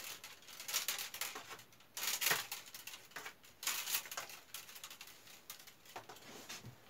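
Willow rods rustling, creaking and clicking against each other as a weaver is worked in and out between the stakes of a hand-woven willow basket. Irregular crisp bursts, loudest about two seconds in.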